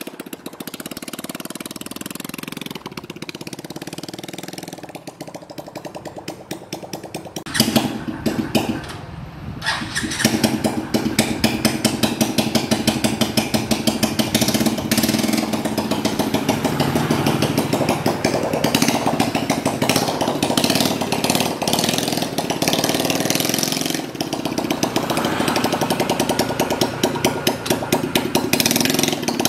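110cc motorcycle engine of a homemade three-wheeler running with rapid firing pulses. It is moderate for the first several seconds, gets suddenly louder about seven and a half seconds in, and runs louder and harder from about ten seconds on.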